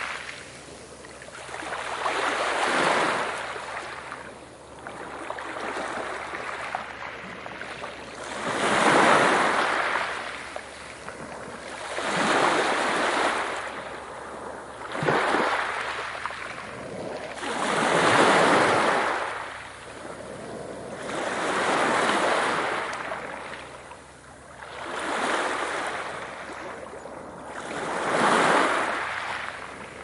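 Sea waves breaking and washing in one after another, each a swell of rushing noise that rises and fades, about every three to four seconds.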